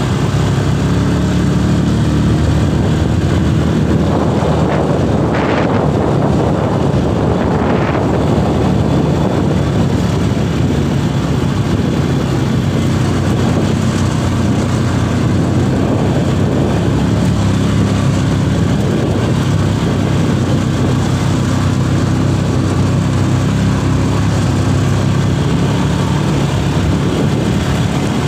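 ATV engine running steadily while the quad bike is ridden, with a broad rush of wind noise over it and two brief louder surges about five and eight seconds in.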